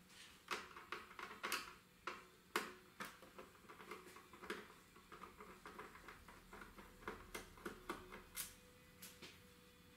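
Faint, irregular light clicks and taps of a screwdriver and small screws being worked on the metal front panel of a Marantz DD92 Digital Compact Cassette recorder as the panel screws are undone.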